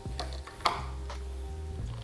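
Background music with a steady bass line, under a few short clicks and one sharp click or knock a little over half a second in.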